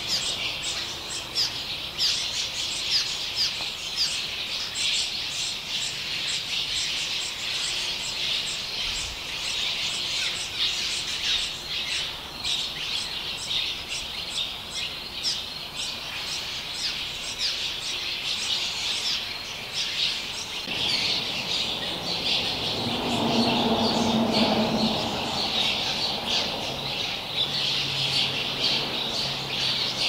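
A colony of cliff swallows calling at their mud nests: a steady stream of rapid, high chirps and squeaks. Between about 21 and 26 seconds in, a low rumble swells and fades under the calls.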